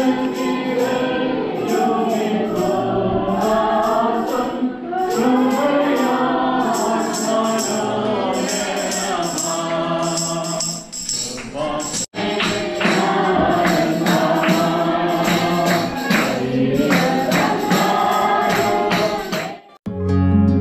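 Background music: a song with singing over a steady jingling percussion beat, breaking off briefly about twelve seconds in.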